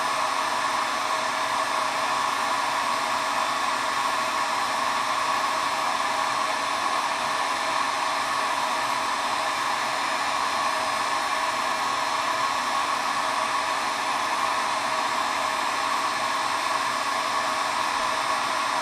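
Hot-air heat gun blowing steadily while it heats acrylic tubing to soften it for bending.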